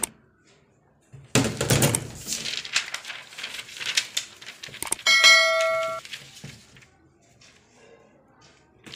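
A sound-effect bell chime, the kind used for a subscribe-button notification bell, rings about five seconds in. It holds steady for about a second, then cuts off suddenly. Before it come a few seconds of noisy rustling with clicks.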